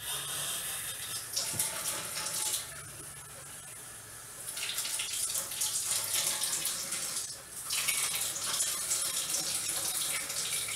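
Kitchen tap running, filling a measuring cup with a quarter cup of water. The flow runs lower from about three seconds in, comes back up, and dips briefly again near eight seconds.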